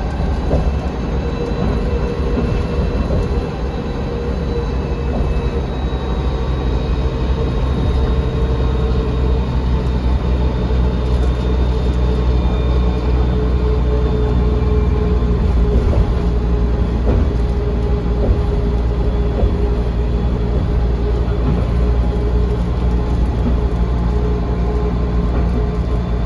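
Cabin noise inside a 1999 Volvo B10L bus under way: a loud, steady low drone of engine and road, with a thin whine held above it.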